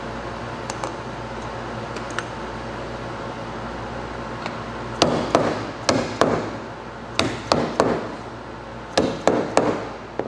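A mallet knocking wooden cabinet panels together, about eleven sharp strikes in quick groups of three or four from about halfway through, after a few light clicks near the start. The panels are being seated together at KD-fastener joints.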